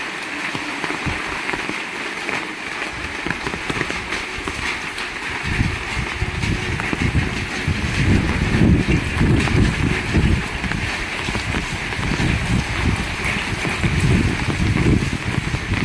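Heavy rain falling steadily as a loud hiss. From about five seconds in, a gusty low rumble rises and falls under it, like wind buffeting the microphone.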